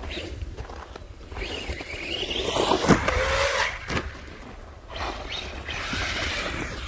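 Arrma Senton 3S BLX RC truck's brushless motor whining up in pitch under hard throttle, with its tyres scrabbling for grip on icy frozen snow. Two bursts of driving, the loudest about three seconds in, with a lull between them.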